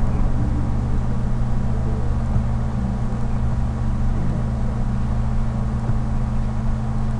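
Steady electrical mains hum with hiss in the recording chain, a constant low buzz with no change.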